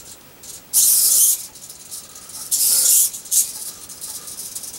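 Small hobby servomotors whirring in short bursts as they swivel the robot's ultrasonic sensors: one burst about a second in and two more close together near three seconds.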